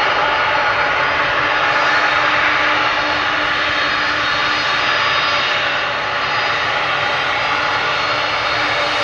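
Boeing 767-300ER's twin turbofan jet engines running steadily as the airliner moves slowly along the runway. It is a continuous roar with steady whining tones in it, which grows a little louder near the end.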